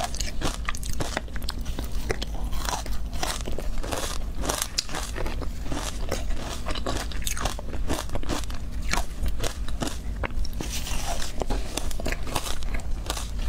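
Close-miked biting and chewing of ice clumps coated in matcha powder, a quick run of crisp crunches one after another. Near the end a softer rustle as the gloved hand gathers more ice from the bowl.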